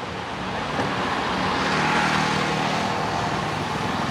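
Street traffic: a steady wash of passing vehicles with a low engine drone that swells through the middle.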